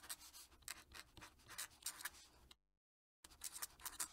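Fountain pen nib scratching across paper in a run of quick, faint writing strokes. It cuts out completely for about half a second a little past the middle, then carries on.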